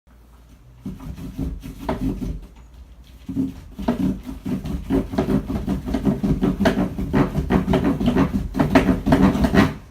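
An animal's voice: a rough, pitched sound in long irregular stretches, starting about a second in, pausing briefly near three seconds, then going on almost without a break until it stops just before the end.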